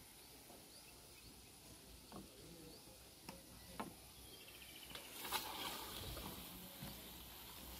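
Faint, steady sizzle of khaja pastries deep-frying in oil in an iron kadhai, with a few scattered clicks and knocks from the slotted ladle and cutting tools; the loudest knock comes about five seconds in.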